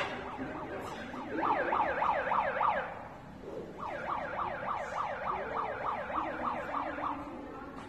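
Electronic siren-like yelp, its pitch sweeping up and down about four times a second, in a short burst and then, about a second later, a longer one.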